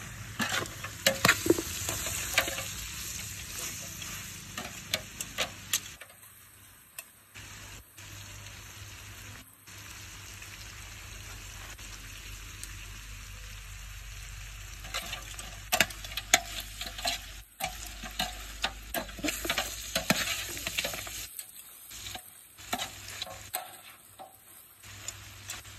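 Duck meat and greens sizzling in a large metal pot, stirred with a metal ladle that scrapes and knocks against the pot's sides. The stirring comes in two spells, with a quieter stretch of plain sizzling in the middle.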